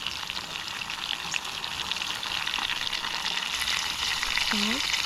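Food frying in a hot pan: a steady crackling sizzle that grows slightly louder.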